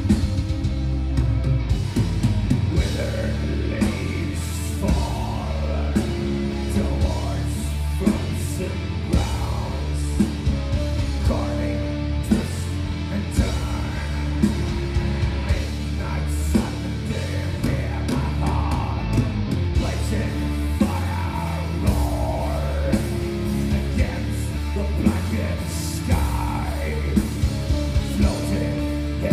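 Black metal band playing live: distorted electric guitars, bass and drum kit, with harsh yelled vocals over them.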